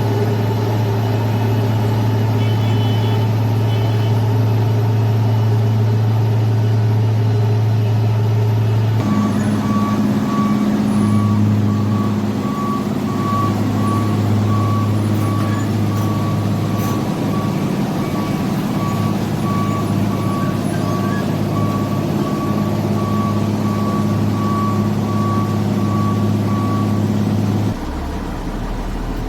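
Heavy diesel engine of road-works machinery running steadily. From about nine seconds in, a reversing alarm beeps repeatedly, and it stops shortly before the end as the engine sound drops.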